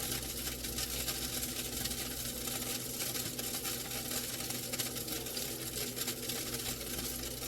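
Air fry toaster oven running with a steady hum from its fan, over a fine continuous crackling and sizzling of burgers under the broiler, where the fat is flaring into flames.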